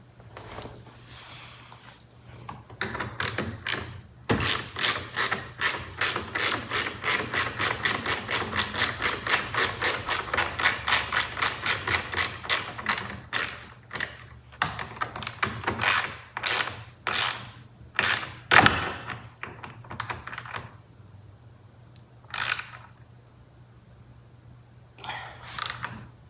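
Hand ratchet wrench clicking rapidly, about four clicks a second, as the steering wheel's airbag-retaining bolts are run in. Later the clicks slow to separate strokes and stop, with two short handling noises near the end.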